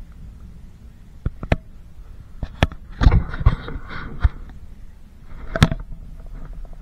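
Sharp knocks and clatter in a small aluminum boat, scattered irregularly with a busier cluster about three seconds in, over a steady low rumble.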